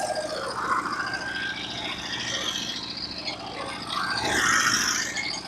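Sawmill engine idling steadily, with a louder burst of noise about four seconds in.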